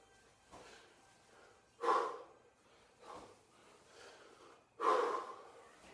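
A man breathing hard through a set of kettlebell lifts: a loud forceful exhale with each rep, two in this stretch about three seconds apart, with quieter breaths between.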